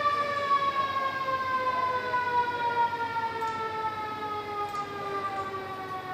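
A siren winding down: one long tone with overtones, sliding slowly and steadily lower in pitch.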